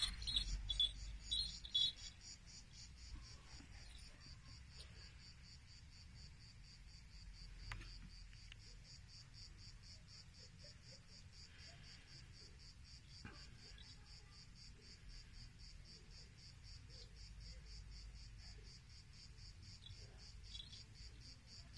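Insects chirping in a steady, fast, high-pitched rhythm, with a few louder high chirps in the first couple of seconds.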